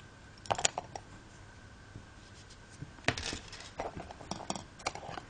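Scissors snipping wool yarn: several short, sharp snips and clicks, one pair about half a second in and a denser cluster from about three seconds on.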